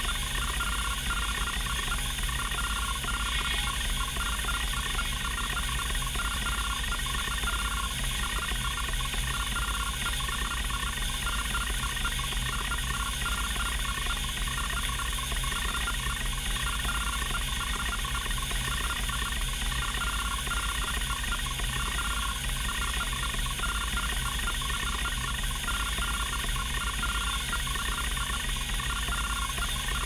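Lapine Titan 3532 30 MB hard drive doing continuous random seeks: its rotary band stepper motor buzzes and ticks rapidly and without pause as the heads jump across the platters, over a steady hum from the drive.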